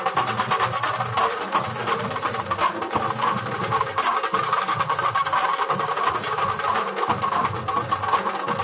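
Nashik dhol ensemble playing: several large barrel dhols beaten with sticks together in a fast, dense, unbroken rhythm.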